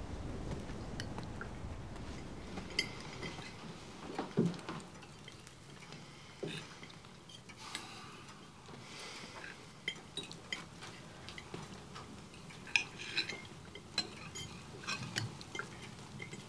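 Forks and knives clinking and scraping on dinner plates in scattered light taps, a few of them louder. A low rumble fades out over the first few seconds.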